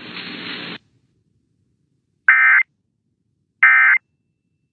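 A moment of radio hiss that cuts off, then two short, identical buzzy digital tone bursts a little over a second apart: the Emergency Alert System (SAME) end-of-message code that closes a weather radio warning broadcast.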